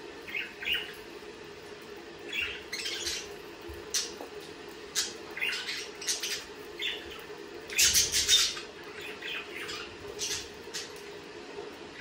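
A flock of budgerigars chirping and chattering in short, scattered calls, with a louder burst of several calls about eight seconds in. A steady faint low hum runs underneath.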